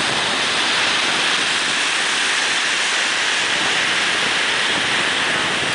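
Heavy ocean surf breaking, a steady even rushing hiss with no pauses.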